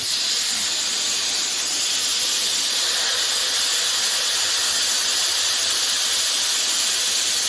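Compressed air hissing steadily out of the MorrFlate four-way manifold's drain valve as all four tires are deflated at once from about 36 psi.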